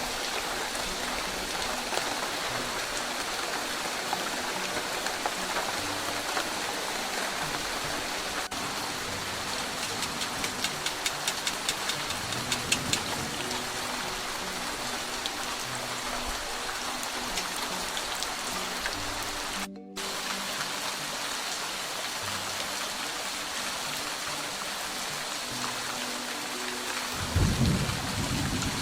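Wild mushrooms frying in hot oil, a steady dense sizzle with a run of sharper crackles about halfway through and a louder low rumble near the end.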